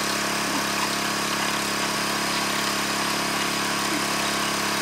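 Small gasoline engine of a backpack-mounted water pump running steadily at constant speed, pumping creek water down a pipe pushed into the streambed gravel.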